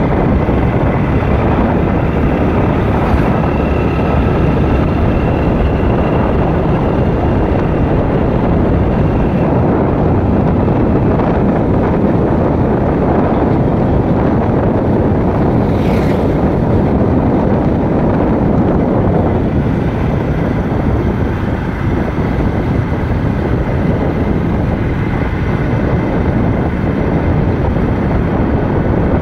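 Steady wind buffeting the microphone over the running noise of a moving vehicle on the road, with a faint steady whine.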